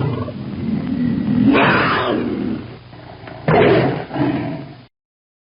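Tiger roaring: a low rumbling roar that swells about one and a half seconds in, then two more loud roars starting about three and a half seconds in, cut off suddenly near the end.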